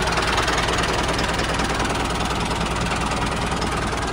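Mini tractor engine running steadily at an even speed, with a fast, fine knock.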